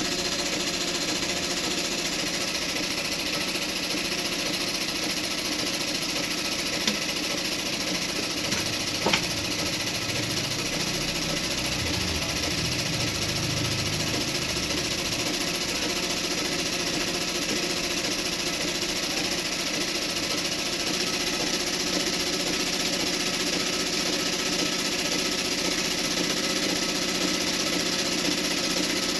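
JAXI JX-38 sewing machine running steadily at speed, an even continuous mechanical whir, with two short clicks about seven and nine seconds in.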